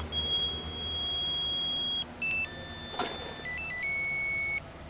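Electronic beeping: one held beep tone for about two seconds, then a short melody of stepped beep tones at changing pitches that cuts off abruptly near the end, with a single click about three seconds in.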